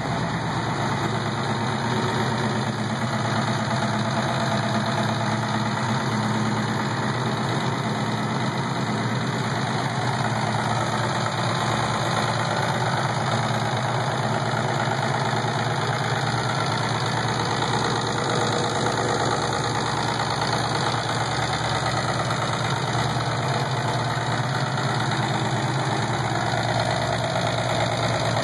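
Turbocharged 2000 Ford Mustang GT 4.6-litre two-valve modular V8 idling steadily with a bad valvetrain noise, a fast ticking clatter over the idle, which the owner suspects comes from the lifters.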